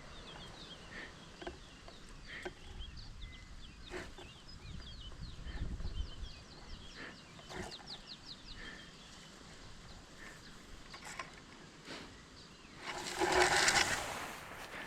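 Birds chirping with quick, high, repeated notes, over scattered sharp clicks. Near the end comes a louder, noisier call of about a second and a half.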